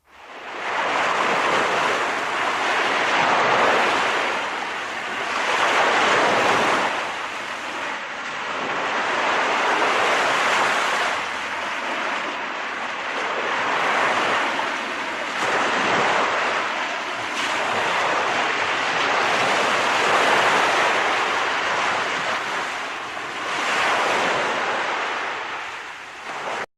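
Ocean surf breaking on a beach, a continuous wash of waves that swells and eases every few seconds.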